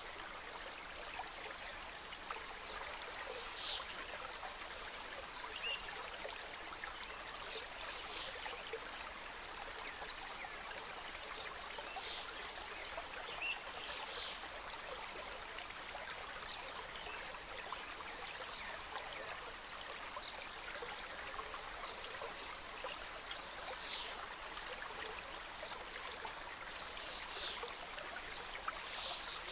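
Mountain stream cascading through a forest, a steady rushing and splashing of water, with a few short high bird chirps now and then.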